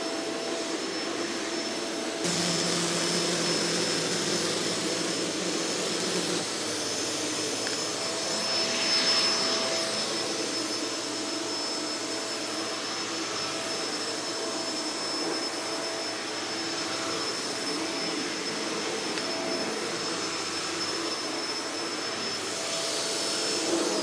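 Kenmore Intuition BU4022 bagged upright vacuum cleaner running while pushed over carpet: a steady motor drone with a thin high whine over it. It gets a little louder about two seconds in.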